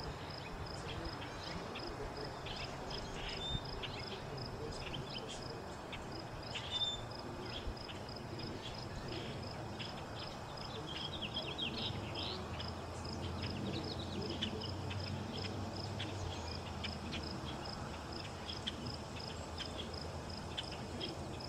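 An insect, cricket-like, chirping in a steady high pulse about three times a second, pausing briefly twice. A hiss of other insects and a faint low rumble in the middle lie under it.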